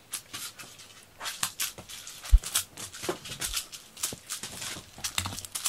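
Cat's claws scratching and scraping at the sisal pad of a wooden scratching board in quick irregular strokes, with one dull thump a little past two seconds in.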